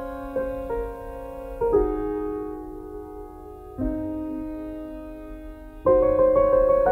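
Background piano music playing slow, held chords that change about every two seconds, with a busier run of notes near the end.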